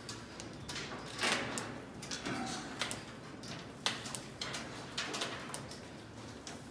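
Backpack sprayer wand spraying antiparasitic solution onto a bull's coat: short hisses of spray, with scattered sharp clicks and knocks.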